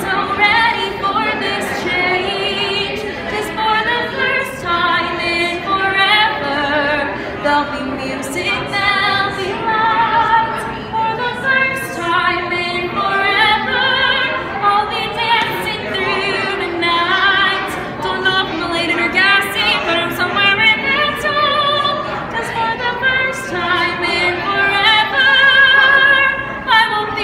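A woman singing a song in a trained, operatic style with strong vibrato.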